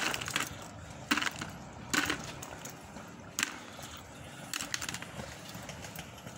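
Sharp knocks and clatters, about five spread a second or so apart, from magnet-fishing gear and pulled-up metal finds being handled.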